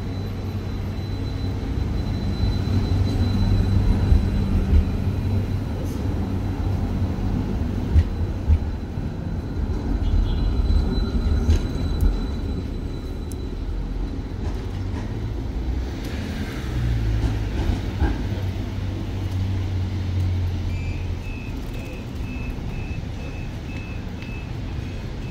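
Stadler Variobahn electric tram at a stop: a steady low hum and rumble that fades about 20 seconds in. Near the end comes a run of short, evenly spaced electronic beeps, about two a second.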